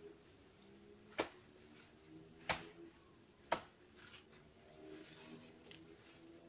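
A blade chopping into a banana plant's trunk: three sharp strokes about a second apart, stabbing the stem so that the plant falls without damaging the bunch.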